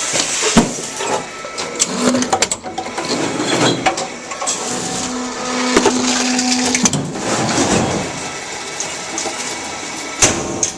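Tomra reverse vending machine working a plastic bottle through, with clattering and crunching and a steady motor hum for a couple of seconds in the middle. It is a Fiji bottle, which these machines struggle to take.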